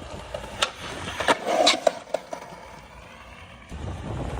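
Skateboard on pavement: a handful of sharp clacks and knocks in the first two seconds, then the low rumble of wheels rolling on concrete starting near the end.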